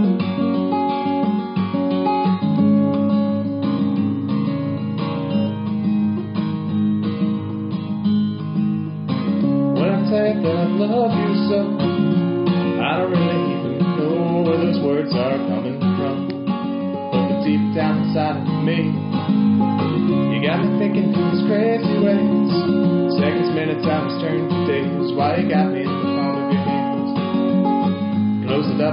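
Acoustic guitar played steadily as a solo song accompaniment; a wavering higher melody joins about ten seconds in.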